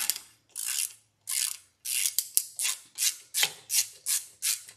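Socket ratchet with an extension clicking in short, rhythmic strokes as it backs out a bolt. The strokes come slowly at first, then about three a second after the first couple of seconds.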